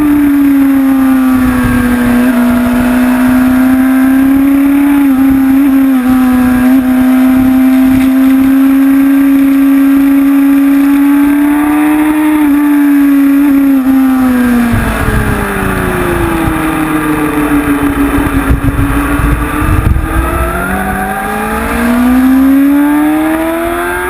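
Honda CBR sport bike's inline-four engine running hard on track, holding steady revs, then dropping off about fifteen seconds in and climbing again near the end.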